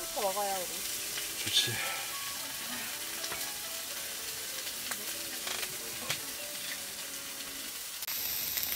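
Food frying on a hot griddle pan over a portable gas stove: a steady sizzle with a few light clicks of utensils on the pan, the hiss growing brighter near the end.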